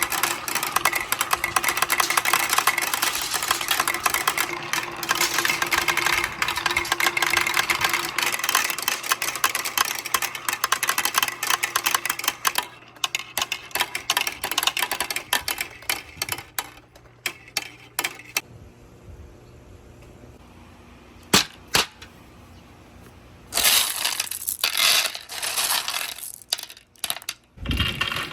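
Many marbles clattering down a marble run, hitting metal parts and rolling on wood, in a dense stream of rapid clicks. The stream thins out about halfway through, leaving a quieter stretch with a couple of single clicks, then a fresh burst of clatter comes near the end.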